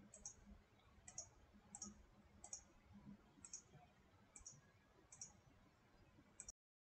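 Faint computer mouse clicks, about one a second, eight in all.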